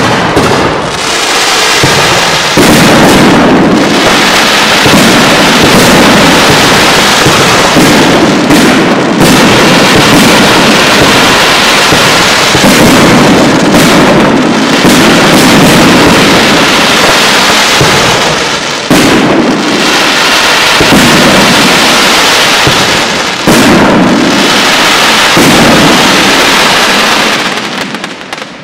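Professional aerial fireworks display: a loud, dense, unbroken barrage of shell bursts that dies away near the end.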